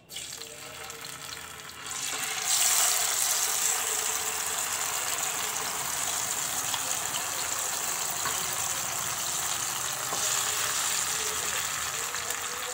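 Small marinated fish sizzling in hot oil in a frying pan as they are put in; the sizzle grows louder about two seconds in and then holds steady.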